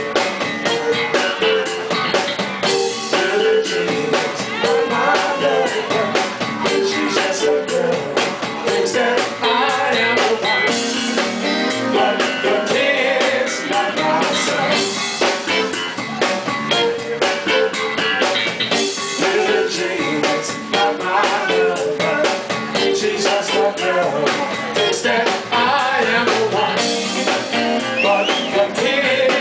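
Live band playing: electric bass, electric guitar and drum kit, with some singing.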